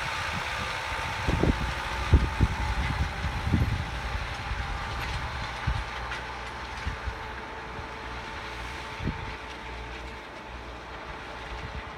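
New Holland TD90D tractor's diesel engine running steadily under load as it pulls a disc harrow through ploughed soil, with a faint steady whine. There are a few low thumps in the first few seconds, and the sound slowly fades as the tractor moves away.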